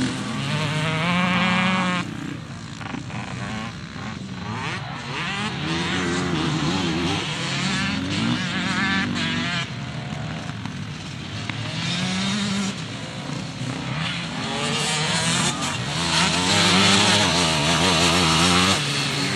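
Enduro dirt bike engine revving up and down as the rider works the throttle and gears through the course, the pitch rising and falling every second or two. It is loudest near the end.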